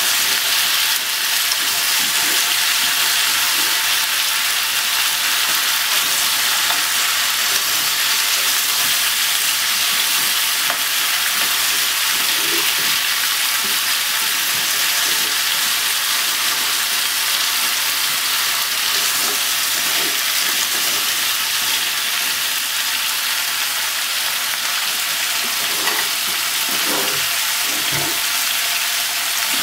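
Onion, carrot, potato and sliced pork sizzling steadily in hot oil in a pot as they are stir-fried with wooden chopsticks. A few light knocks of the chopsticks against the pot come near the end.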